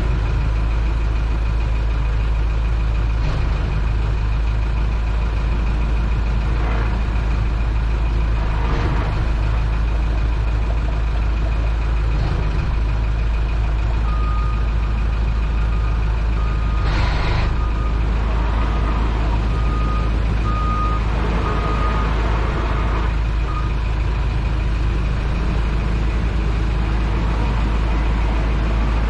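Towboat's engine running steadily at slow speed with a constant low drone. About halfway in, a high electronic beep repeats roughly once a second for about ten seconds, like a reversing alarm, and a short hiss sounds in the middle of it.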